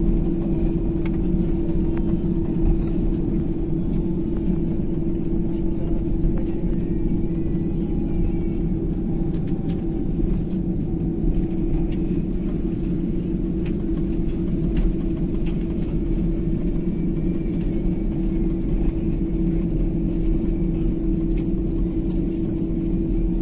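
Jet airliner cabin noise during the landing roll, spoilers deployed: a steady rumble of engines and wheels on the runway, with a constant low hum.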